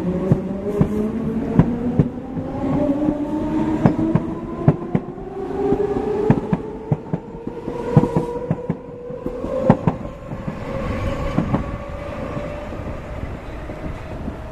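BR 472 S-Bahn electric multiple unit accelerating away from the platform: its electric drive gives a whine that rises steadily in pitch, with sharp irregular clacks of the wheels over rail joints. The sound fades in the last few seconds as the train draws away.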